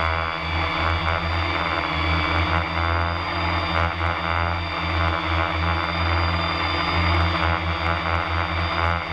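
FPV multirotor drone's electric motors and propellers running at a steady speed, a high whine over a pulsing low hum, just after spinning up.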